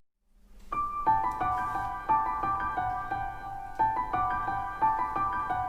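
Edited-in background music: a simple melody of ringing keyboard-like notes. It comes in just under a second after the waterfall sound cuts out.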